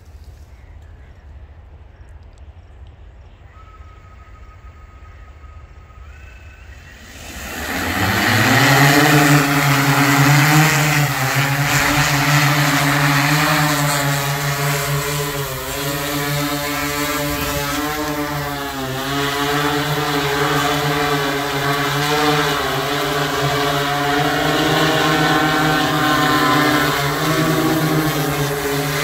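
Agricultural spraying drone's multirotor motors and propellers spinning up about seven seconds in, rising in pitch, then running loud and steady as it lifts off and flies low over the field, the pitch wavering as it manoeuvres. Before the spin-up there is a faint steady tone that steps up in pitch.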